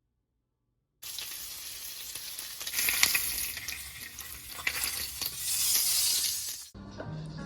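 Food sizzling and crackling in a hot frying pan, with two louder swells. It starts abruptly about a second in and cuts off suddenly near the end.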